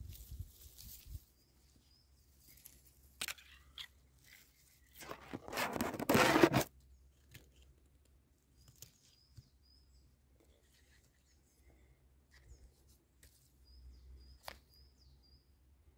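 Dry grass rustling and tearing close up as mushrooms are cut free with a pocket knife, with a few light clicks and one louder tearing rustle lasting over a second about five seconds in. Faint high bird chirps now and then.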